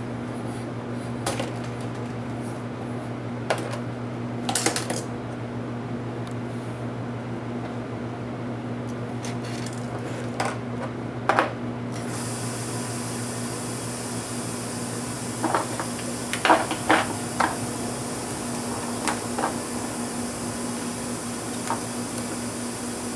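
Scattered clicks and taps of small tools and plastic and metal laptop parts being handled during disassembly, in small clusters, over a steady low hum. A steady high hiss comes in about halfway through.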